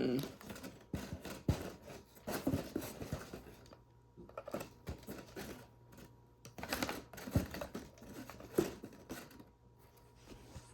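Handling noises: irregular clicks, knocks and short rustles as small objects are picked up and set down.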